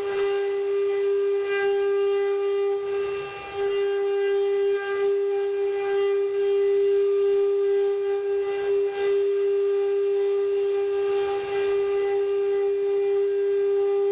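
Spindle motors of a multi-head CNC wood-carving machine running with a steady high whine, with faint cutting noise now and then and a brief dip in level about three and a half seconds in.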